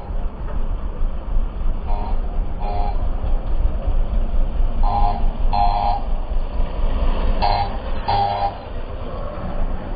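A vehicle horn honks in three quick double beeps, about two to three seconds apart, over the steady low rumble of riding on the road.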